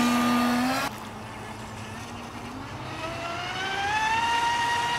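Wltoys WL916 RC speedboat's brushless electric motor whining as the boat pulls away at high speed, with the hiss of water spray close by that cuts off about a second in. From about three seconds in, the motor's whine rises in pitch and then holds steady.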